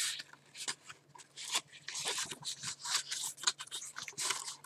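Sheets of thick, textured scrapbooking paper in a pad being flipped by hand: an irregular run of short rustles and flicks.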